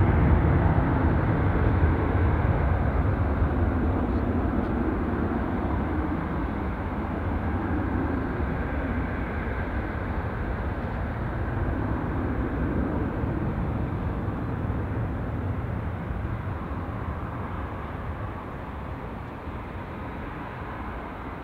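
Airbus A330-300's two Rolls-Royce Trent 700 turbofans at takeoff thrust on the takeoff roll: a loud, low rumble with a broad rush over it, fading steadily as the airliner accelerates away.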